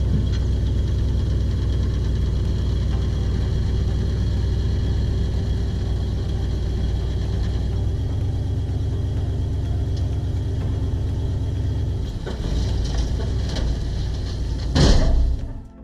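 Excavator's diesel engine running steadily, its note shifting slightly near the end, with a short loud noise just before it stops.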